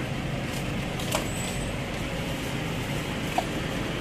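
Steady hum of road traffic with a low rumble, and two faint clinks, about a second in and near the end.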